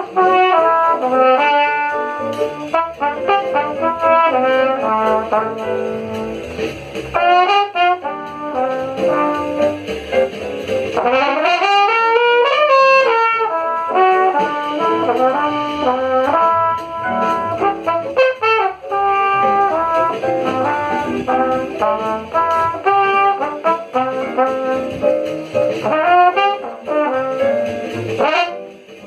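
Jazz played by brass instruments, trumpet and trombone lines moving over a low bass line. Between about 11 and 13 seconds in, the lines sweep up in pitch and back down.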